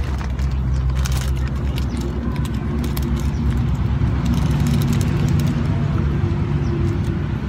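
A motor running: a steady low hum with a pitched drone that grows a little stronger through the middle.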